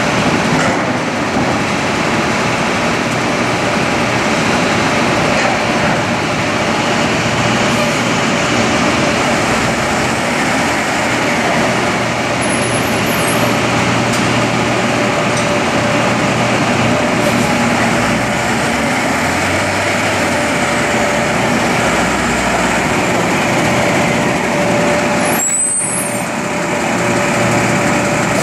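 Heavy diesel machinery running steadily: a loud, even engine noise with a faint steady whine, dipping briefly near the end.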